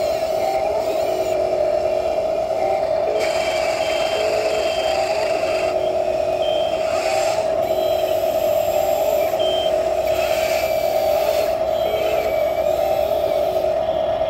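Radio-controlled toy wheel loader driving, with a steady high whine running throughout and short beeps now and then.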